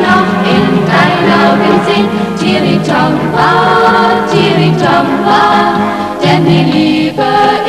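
Schlager music: several women's voices singing together over instrumental accompaniment.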